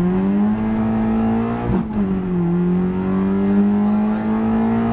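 Citroen Xsara VTS rally car's four-cylinder engine under hard acceleration, heard from inside the cabin: the revs climb, drop sharply at an upshift about two seconds in, then climb again in the next gear.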